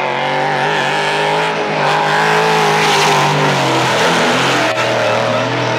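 Two drift cars' engines held at high revs through a tandem drift, their pitch wavering and dipping briefly about four seconds in, over the hiss of sliding tyres.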